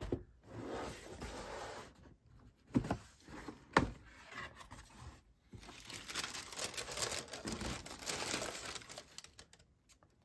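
Cardboard shoebox being handled and opened, with two sharp knocks about three and four seconds in, then several seconds of tissue paper crinkling as it is folded back from around the sneakers.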